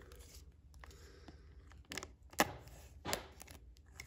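Box cutter blade scraping and slicing at the plastic shrink-wrap on a trading-card booster box: a few short, sharp strokes in the second half, faint.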